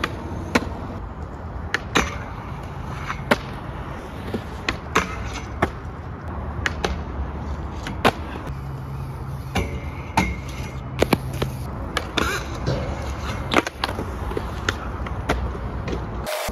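Skateboards rolling on concrete, the urethane wheels giving a steady rumble, broken by many sharp clacks of boards popping, hitting the ground and landing.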